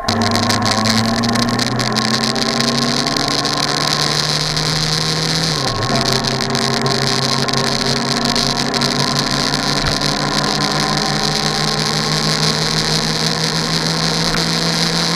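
A vehicle engine running steadily under loud hissing noise, its pitch dropping briefly about six seconds in.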